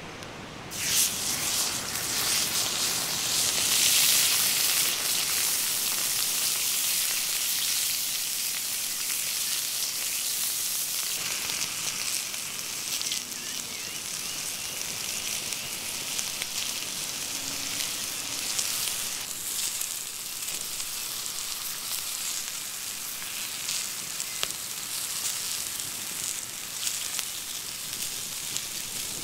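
Tri-tip beef steak sizzling on a hot cast-iron grill pan. The sizzle starts suddenly about a second in as the meat goes down, is loudest over the next few seconds, then settles to a steady sizzle with a few small pops.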